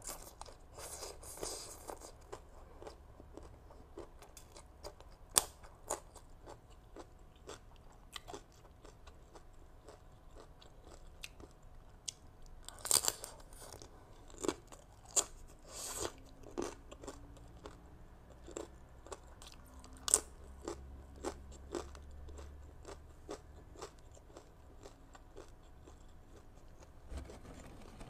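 Close-up crunching and chewing of a crisp toasted rice cracker (bánh đa) loaded with green mango and shrimp salad: a run of sharp, irregular crackles. The loudest bite comes about halfway through, with single sharp snaps about a third of the way in and again about two-thirds of the way in.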